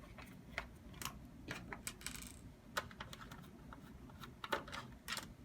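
Light, irregular metallic clicks and ticks of a Torx T8H security screwdriver working out the screws that hold a PS4's power supply in place, with a short scrape about two seconds in.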